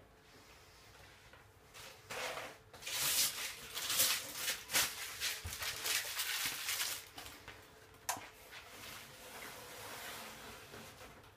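Rustling and handling noise for about five seconds, starting about two seconds in, with a series of sharp clicks and knocks through it; a single click follows about eight seconds in.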